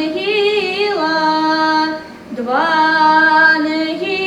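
A woman singing a Russian sacred folk verse unaccompanied, stretching one word over long held notes with small sliding turns between pitches. There is a brief breath about two seconds in, then a new held note.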